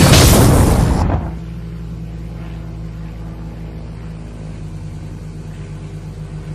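A cartoon explosion sound effect dying away about a second in, then a steady low droning hum of a spaceship engine sound effect.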